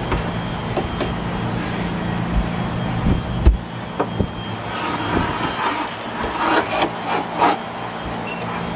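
Woven fiberglass cloth rustling and crinkling as it is unrolled and handled, loudest in several bursts past the middle, over a steady low hum and a few light knocks.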